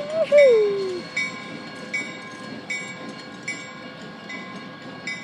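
Freight train rolling past a grade crossing in a gap between blasts of its horn, with the crossing bell striking about once every 0.8 s. A short falling whoop from a voice comes in the first second.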